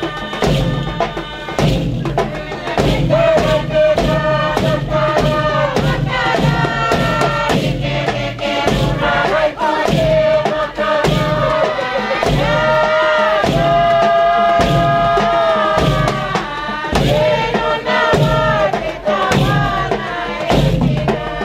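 Group singing of a Torres Strait Islander dance song, with long held notes over a steady drum beat.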